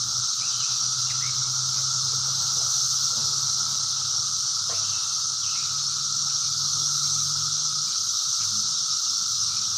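Steady high-pitched drone of insects, with a low steady hum underneath that stops about eight seconds in.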